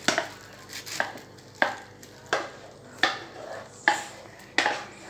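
A wooden spoon knocking and scraping against a cooking pot as thick chocolate-biscuit mixture is scraped out of it. About seven sharp knocks come at a steady pace, roughly one every 0.7 seconds.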